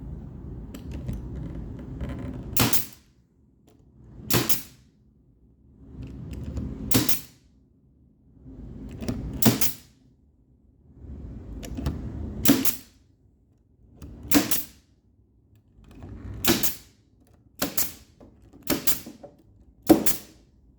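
Brad nailer firing about ten single shots, one every one to two seconds and quicker near the end, nailing 1/4-inch plywood down onto a 2x2 wood frame, with handling and shuffling noise between shots.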